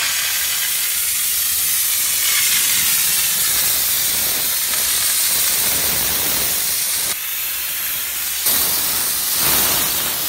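Steam jetting from the trigger spray gun of an LPG-fired steam car washer set to 12 bar continuous steam: a steady, loud hiss. It eases off briefly about seven seconds in, then comes back.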